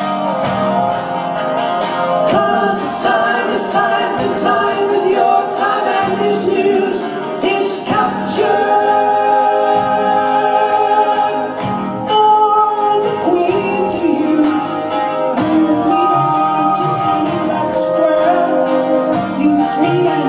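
Rock band playing live: sung vocal harmonies over the instruments, with a steady beat of regular sharp ticks.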